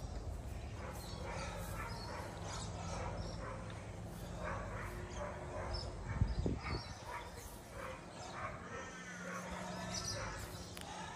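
Short, repeated animal calls, with a single thump about six seconds in.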